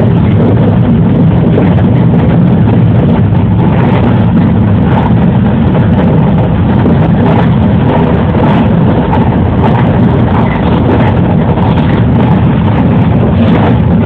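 JR 113 series electric train running at speed, a steady loud rumble of motors and wheels on the rails with faint irregular clicks over it.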